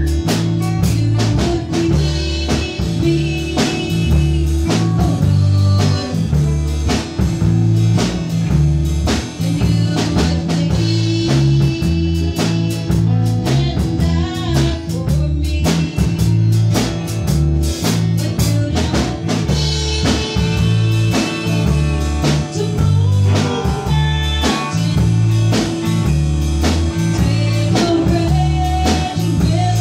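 Instrumental passage of a blues-style gospel song played by a small band: acoustic guitar and drum kit over a steady, repeating bass line, with no singing.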